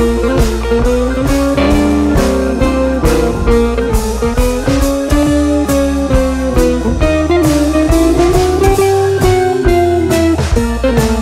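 Background music: a blues-style instrumental with a sliding guitar melody over a steady drum beat.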